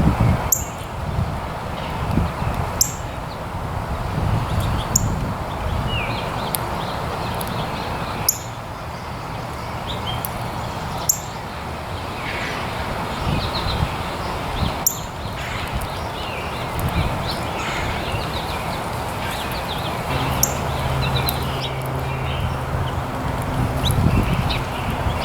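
Small birds chirping: short, sharp, high-pitched calls every second or two, with softer twitters between, over a steady low rumbling background noise.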